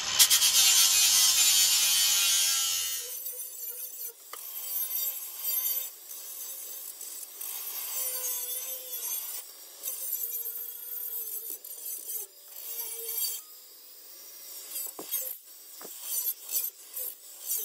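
Cordless angle grinder with a coarse grit-40 flap disc grinding along the steel edge of an old handsaw blade, sharpening it into a knife edge. The grinding is loud and full for about the first three seconds, then turns quieter and thinner, with a wavering motor tone and scraping as the disc works along the blade.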